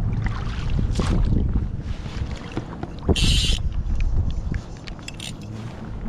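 Wind rumbling on the microphone and water moving around a small pontoon boat, with scattered small knocks and a short hissing splash about three seconds in.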